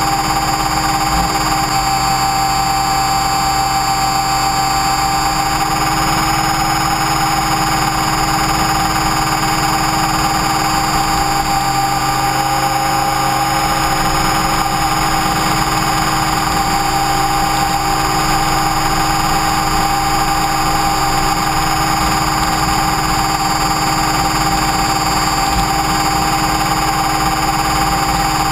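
Onboard sound of an Align T-Rex 550E electric radio-controlled helicopter in flight: a steady, high-pitched whine from the motor and gears over rushing wind and vibration noise, its pitch holding almost constant.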